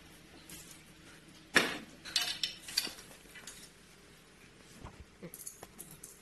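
Small metal fittings (bolts, nuts and washers) clinking and tapping against the tile floor and the metal chair leg as the leg's anchor bolts are fitted. The sharpest clink comes about a second and a half in, followed by scattered lighter clicks.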